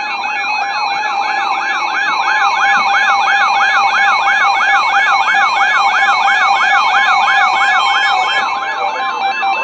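Electronic siren-style alert tone warbling fast, its pitch sweeping up and down about three times a second over a steady pulsed tone.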